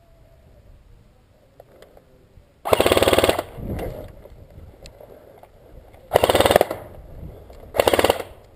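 Airsoft rifle firing three short full-auto bursts, a fast rattle of shots: the first a little under a second in length, the second and third shorter and close together near the end.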